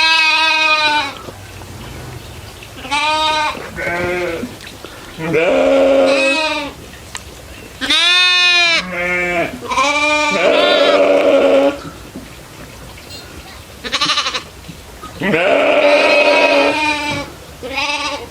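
Goats bleating over and over: about ten separate wavering calls, some short and some drawn out for a second or more, with brief pauses between them.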